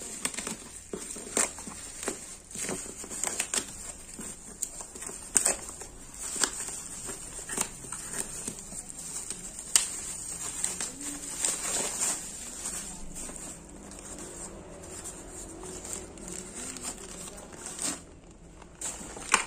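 Black plastic and bubble-wrap packaging crinkling and rustling as a parcel is cut open with scissors and torn apart by hand, with frequent sharp crackles.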